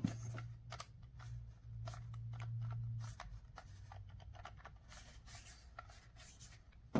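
Scattered small clicks and rubbing from a handheld shower head being handled and turned over, over a low steady hum.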